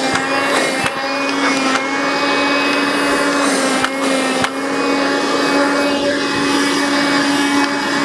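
Cordless handheld vacuum cleaner (Mach model) running steadily, its motor giving a constant hum over airflow noise. A few brief knocks come as the unit is handled.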